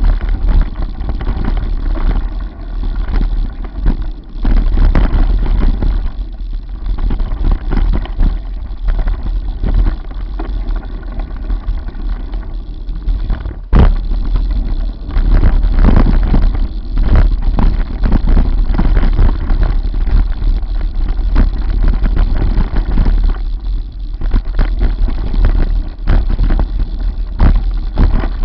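Wind buffeting the microphone of a camera mounted on a mountain bike riding fast down a rough dirt trail, with the constant rattle and knocks of the bike and camera mount over bumps. One sharp, loud knock about halfway through.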